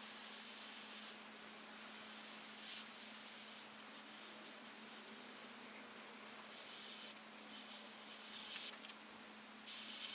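Airbrush spraying paint in a series of short on-off bursts of high hiss, over a steady faint hum.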